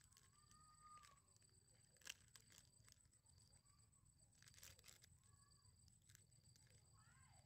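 Near silence: faint crinkling and tearing of a food packet being opened by hand, sharpest about two seconds in and again between four and five seconds.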